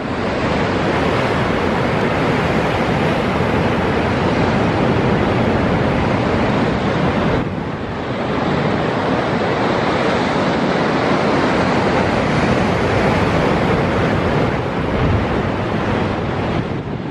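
Rough sea breaking against limestone sea cliffs: a loud, continuous wash of surf, with wind on the microphone. It dips briefly about halfway through.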